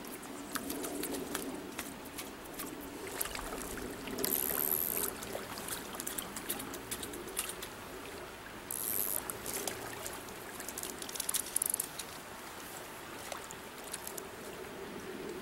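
Shallow stream water running and trickling, with scattered small clicks and two short stretches of high rustling, about four and nine seconds in.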